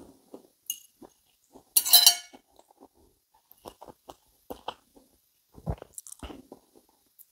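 A person chewing a bite of sausage, with small wet mouth clicks and smacks scattered throughout and a louder, brighter noise about two seconds in.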